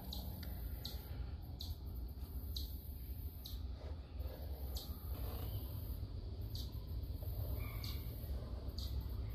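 A small bird chirping in short high notes about once a second, over a low steady rumble.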